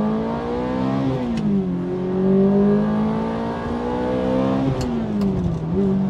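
Ferrari F430's naturally aspirated V8 engine and exhaust under hard acceleration through the manual gearbox. The note rises, drops at an upshift about a second in, climbs again for several seconds, then drops at a second upshift near the end and settles.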